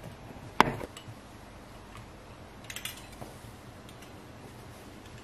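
One sharp knock a little over half a second in, then a few faint clicks of a kitchen knife tapping the granite countertop as it trims a sheet of thin dough.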